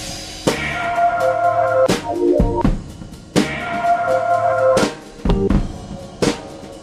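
Background music: a drum beat with held melodic notes.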